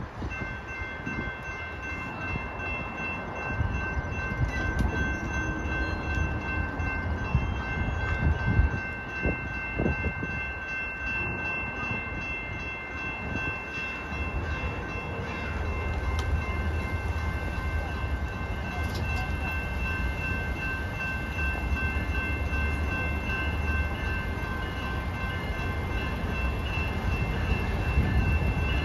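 Railroad grade-crossing warning bell ringing steadily as a passenger train approaches slowly. The train's low rumble grows louder toward the end, and gusts of wind hit the microphone in the first half.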